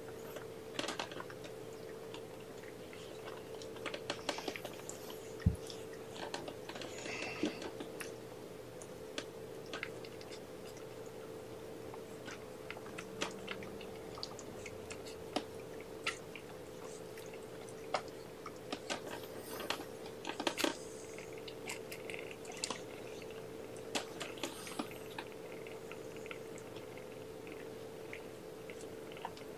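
Soft, irregular clicks and small mouth and movement sounds from the cats in the kennel, scattered over a steady faint hum.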